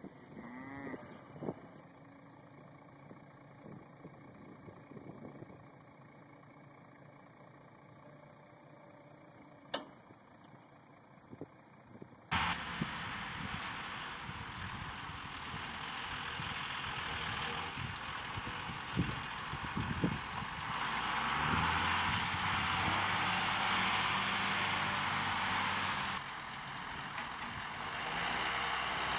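Faint outdoor sound at first, then, from about twelve seconds in, a John Deere tractor's engine running loudly under a steady rushing noise while its front-end loader sets round hay bales onto a flatbed trailer.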